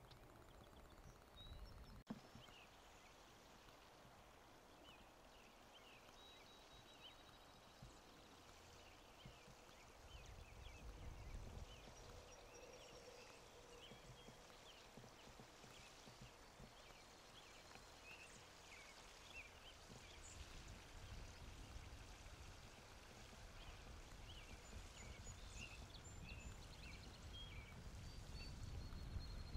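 Faint outdoor ambience: many short, high chirping calls from small animals, dozens of them, with a few thin whistles, over a low rumble that swells about ten seconds in and again near the end.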